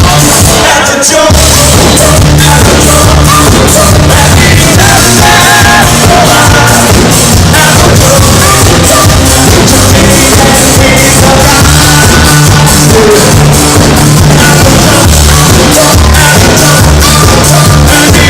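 Live electronic dance music played very loud over a festival sound system: a heavy, steady bass and beat with a sung vocal. The bass drops out briefly and kicks back in about a second in.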